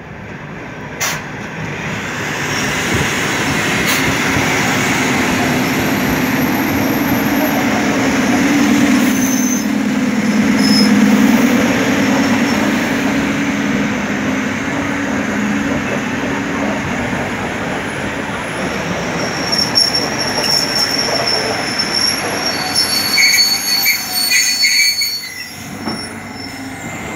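Pasažieru vilciens electric multiple-unit train running in along the platform: a steady rumble of wheels on rails that builds over the first few seconds and later eases. High-pitched squeals come in over the last several seconds as it slows.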